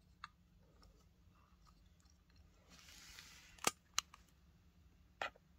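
Handling clicks from a BOSS OD-1 overdrive pedal's metal enclosure and circuit board being turned over: a faint click early on, a brief rustle about three seconds in, then two sharp clicks close together and a third click near the end.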